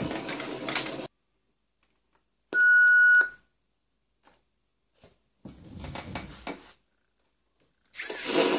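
Simulated engine sound from an RC sound module's small speaker stops about a second in. A loud, steady electronic beep of just under a second follows, then a short rough burst, and the engine sound starts again near the end as the next sound is selected.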